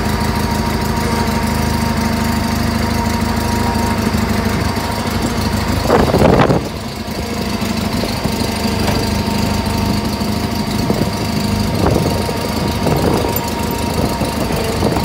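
Riding lawn tractor's engine running steadily while it pushes a red riding mower with its front blade, with a short louder burst of noise about six seconds in.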